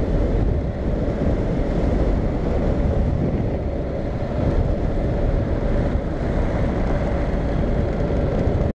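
Honda Integra's parallel-twin engine running while the motorcycle rides, mixed with heavy wind rush on the GoPro microphone. The sound is steady and cuts off suddenly near the end.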